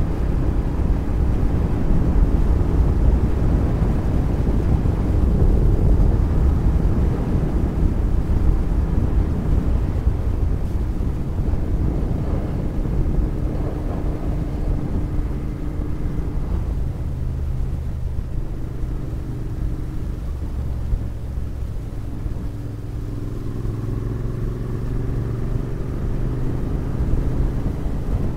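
Royal Enfield Interceptor 650's parallel-twin engine and exhaust running steadily under way, picked up by a helmet camera, with a dense low rumble and an engine note that shifts a little in pitch along the way.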